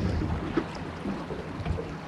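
River water rushing and slapping around a drift boat, with wind buffeting the microphone.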